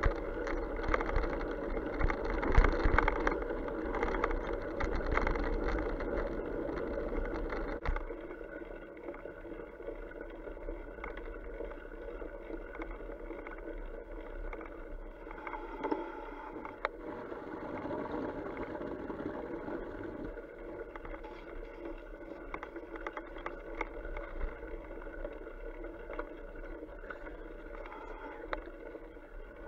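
Fat bike riding through wet mud and puddles: wide tyres rolling and splashing, with frequent rattling knocks as the bike jolts over ruts. The sound drops and dulls abruptly about eight seconds in.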